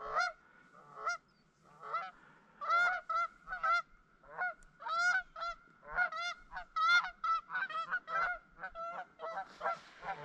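A flock of geese honking on the water, calls overlapping with no let-up, about two or three honks a second.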